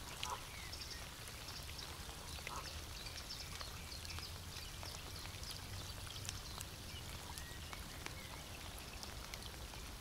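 Rain falling on a lake surface: a steady patter of many small raindrop ticks, with a few faint short chirps.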